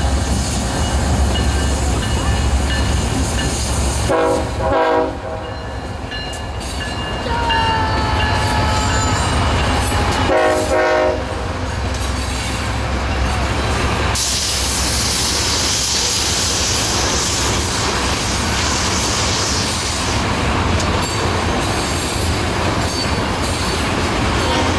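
BNSF diesel-led manifest freight train passing at a grade crossing. The locomotives' engines rumble, and the air horn sounds in short blasts about four seconds in and again about ten seconds in. From about fourteen seconds in, tank cars roll past with steady wheel-on-rail noise and a high hiss.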